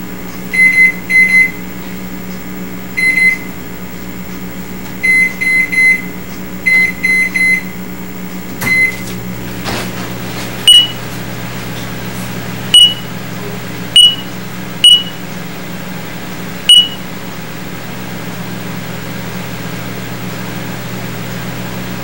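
A microwave oven running with a steady low hum, over electronic beeps: clusters of short beeps in the first nine seconds, then five single higher beeps, each with a click, one to two seconds apart. The later beeps are a radar detector signalling microwave pulses picked up from the oven.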